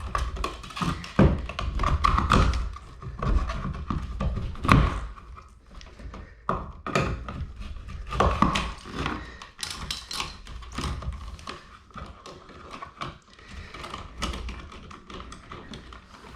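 An electrical outlet box being wiggled and pried loose from its hole in the drywall: a run of irregular knocks, taps and scraping clicks.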